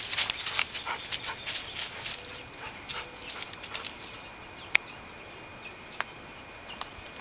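A dog whining in short, high-pitched whimpers, with scattered rustling and clicks; the whimpers cluster in the middle of the stretch.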